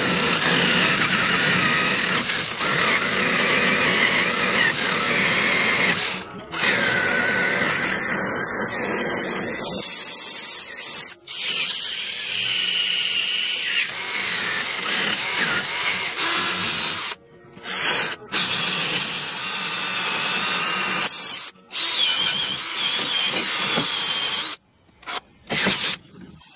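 Cordless drill spinning a wire wheel brush against a rusty brake master cylinder, scrubbing the rust off toward bare metal. The tool runs steadily and stops briefly several times.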